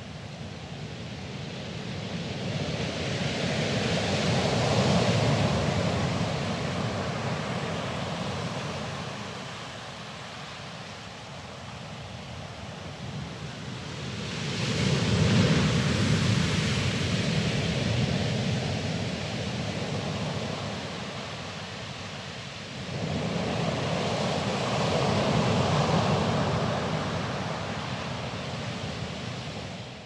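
Sea waves breaking over a pebble beach: three surges about ten seconds apart, each swelling to a peak and then fading.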